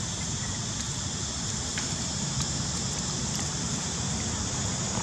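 Steady outdoor ambience: a low rumble and an even high hiss, with a faint tick or two and no animal calls.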